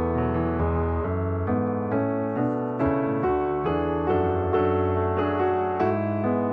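Background piano music, a gentle melody with notes changing about every half second.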